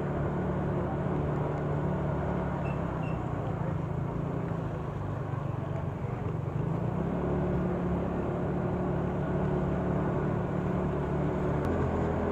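Motor scooter engine running steadily while riding, heard from the rider's position, with the hiss of tyres on a wet road; its note changes slightly about seven seconds in.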